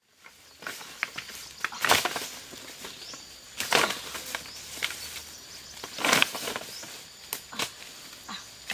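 Dry bamboo leaves rustling and crunching, with sharp cracks of dry sticks, as dry wood is picked out of thick leaf litter by hand. Three louder crunching rustles come about two, four and six seconds in.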